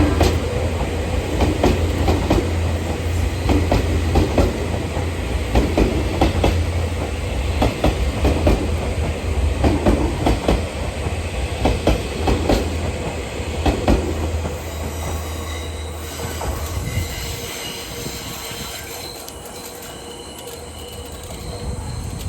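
A locomotive-hauled train passing, its wheels knocking over rail joints in a repeating clatter over a steady low hum. About two-thirds of the way through the hum stops and the clatter thins out, high wheel squeal comes in, and the sound slowly fades as the train moves away.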